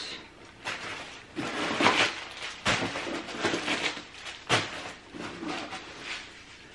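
Packing-paper stuffing rustling and crinkling as it is pulled by hand out of a leather tote bag, in a series of uneven rustles.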